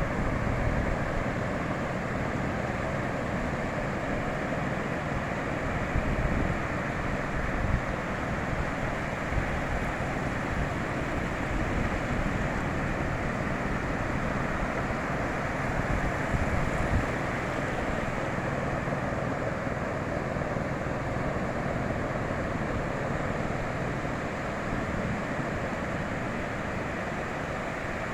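Ocean surf washing onto a beach in a steady, unbroken wash, with wind buffeting the microphone in low rumbling gusts.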